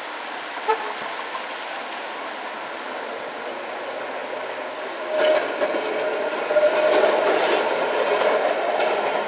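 Vintage Milan Peter Witt–type tram (1500 class) rolling on street track and passing close by. The rumble and clatter of its steel wheels on the rails grow louder about five seconds in, with a steady whine as it goes past. A single short, sharp clank sounds about a second in.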